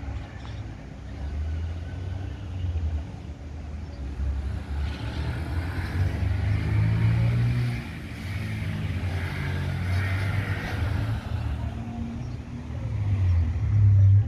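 Car engines and tyre noise in street traffic, swelling as vehicles pass, loudest in the middle and again near the end.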